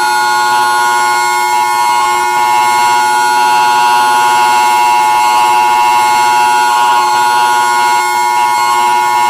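Emergency Alert System attention signal: a loud, steady electronic two-note alarm tone held without a break.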